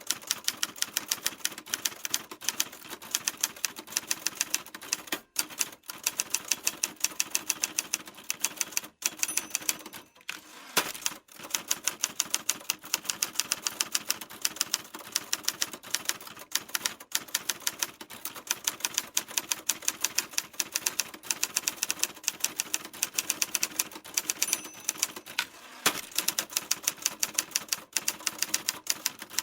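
Typewriter keys struck in a fast, steady run of clicks, with a few brief pauses.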